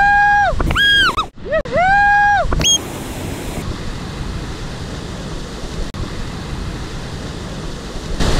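Sea surf washing and foaming over shore rocks as a steady rushing noise. It is preceded by a loud, high-pitched call, repeated three times in the first couple of seconds.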